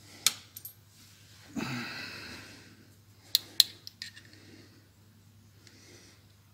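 Handling of a brass cartridge case and a steel dial caliper: a sharp click near the start, a brief sliding rasp, then two sharp metallic clicks in quick succession about three and a half seconds in, as the caliper jaws close on the case. A faint low steady hum underneath.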